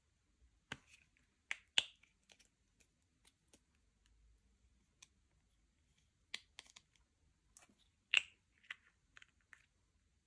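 Irregular sharp clicks and short pops from hands working with slime and makeup, loudest about two seconds and eight seconds in.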